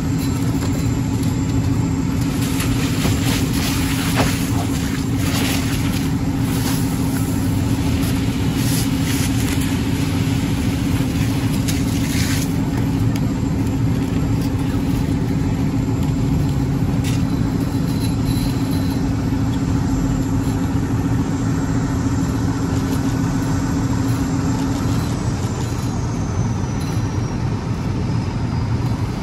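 Fire engine's motor and pump running steadily while supplying the hose line: a constant low drone with a hum that drops away about 25 seconds in. Short bursts of hiss come and go in the first half.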